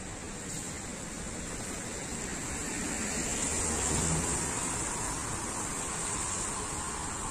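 A car passing close by on a wet road, its tyres hissing on the wet asphalt. The sound swells to its loudest about four seconds in, then eases as the car drives away.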